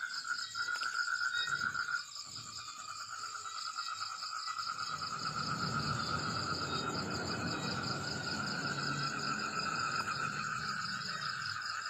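Night chorus of crickets and other insects: several steady, rapidly pulsing trills at different pitches. A low rumbling noise rises under them about four seconds in and fades near the end.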